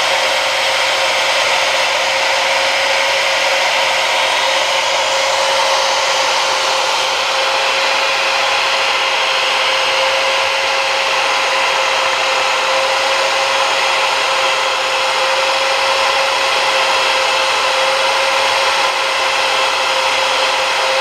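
Cordless drill running at steady speed, spinning a short aluminum arrow-shaft tube in its chuck while a mill bastard file is held against the turning tube to cut a 45-degree shoulder taper. The sound is a steady motor whine with the file's rasping hiss on the aluminum over it.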